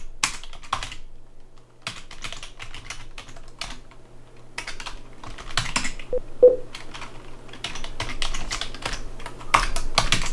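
Typing on a computer keyboard: irregular runs of key clicks, a few at first, then faster, steadier typing from about two seconds in. A brief low tone sounds about six seconds in.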